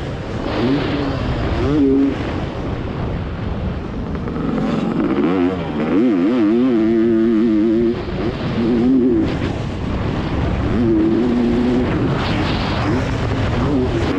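Two-stroke motocross bike engine heard on board at speed, its pitch rising and falling as the throttle is worked, with brief throttle chops. Wind rushes over the microphone throughout.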